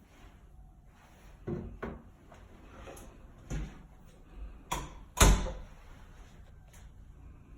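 Doors in an apartment being opened and shut: a handful of separate knocks and clacks, the loudest a sharp bang about five seconds in.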